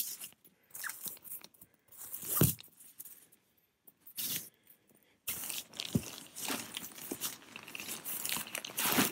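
Synthetic tent fabric rustling and crinkling as a rolled-up tent is handled and unrolled. It comes in irregular bursts with a short lull in the middle, then rustles steadily from about five seconds in.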